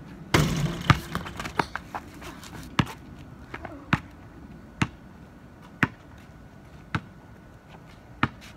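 A basketball shot hits the hoop with a loud rattle, then the rubber ball bounces several times on the concrete driveway. After that comes slow dribbling, about one bounce a second.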